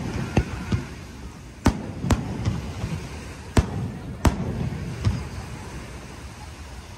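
Aerial firework shells bursting overhead: a string of separate sharp bangs, irregularly spaced and thinning out after about five seconds.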